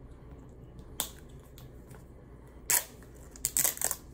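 Clicks and crackles from a plastic shake bottle being handled close to the microphone: one sharp click about a second in, then a louder crackle and a quick run of clicks near the end.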